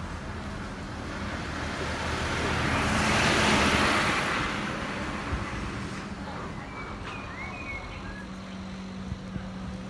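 A small tipper truck drives past close by. Its engine and tyre noise build to a peak a few seconds in and then fade away, over a steady low traffic hum.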